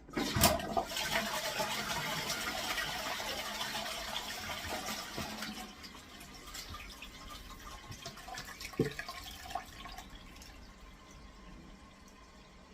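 Toilet flushing, set off by a click of the newly fitted dual push-button flush mechanism: water rushes for about five seconds, then dies down to a quieter trickle. A single knock comes near the nine-second mark.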